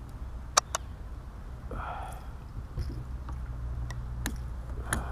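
Sharp clicks and knocks of a landing net and paddle being handled on a fishing kayak: a loud pair about half a second in, two more near the end, over a steady low rumble.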